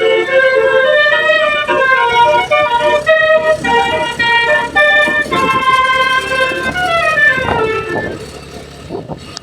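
Basuri musical horn on a tour bus playing a tune in quick stepped notes, ending in a falling glide that dies away near the end.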